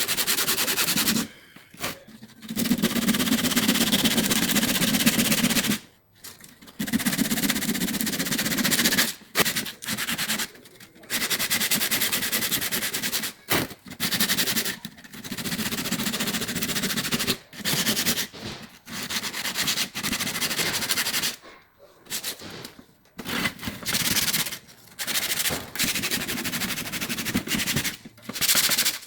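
Sanding the rust off an old metal tool box: a rough, gritty rubbing in bouts of one to several seconds that stop abruptly many times.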